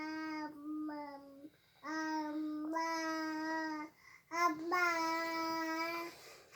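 A young child snoring in sleep, each breath drawn out into a long, steady humming tone of nearly the same pitch, with short pauses between breaths.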